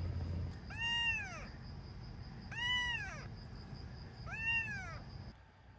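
A tiny kitten meowing three times, about two seconds apart. Each call is a high cry that rises and then falls in pitch.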